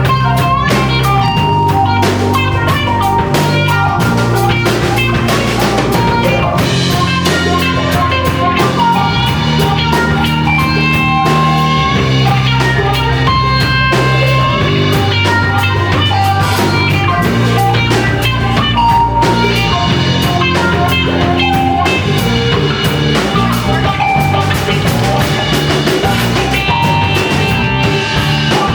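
Live rock band playing an instrumental passage: guitar lines over sustained bass notes and a steady drum-kit beat.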